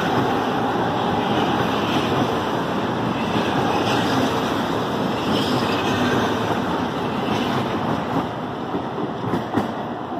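Electric multiple-unit train running past close by, a steady rumble of wheels on rail that slowly fades over the last few seconds. A few sharp clacks come over the rail joints near the end.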